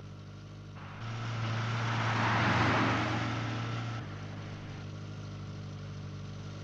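A car driving past: engine and tyre noise swells to a peak about two and a half seconds in, then fades back to a steady, quieter engine note.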